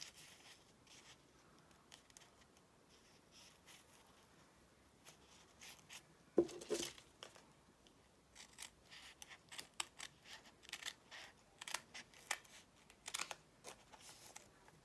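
Scissors cutting fabric in short snips, faint, coming thick and fast in the second half. A louder brief handling sound comes about six seconds in.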